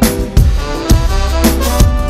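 Live band playing an instrumental passage: sustained melodic parts over a steady beat of low drum hits about twice a second, with no vocals.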